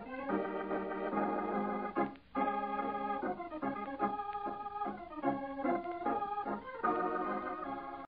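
Organ playing slow sustained chords that change every second or so, with a brief break about two seconds in: the closing fill music of a 1950 radio broadcast, thin and dull in the old recording.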